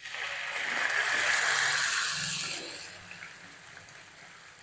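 Raw boneless chicken cubes tipped into hot oil with fried garlic paste in a frying pan, setting off sizzling. The sizzle starts at once, is strongest for the first two seconds or so, then dies down to a quieter frying hiss about three seconds in.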